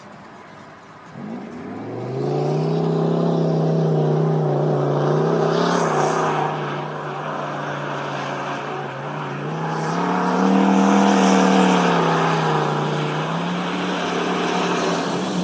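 Dodge Ram pickup's 8.0-litre V10 engine pulling under throttle as the truck comes on, its note growing in about a second or two in, rising in pitch and loudness around ten seconds in, then easing back. Near the end the truck splashes through standing floodwater.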